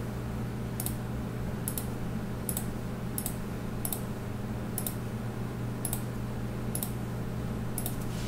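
Computer keyboard key presses, about one a second, each advancing to the next photo, over a steady low electrical hum.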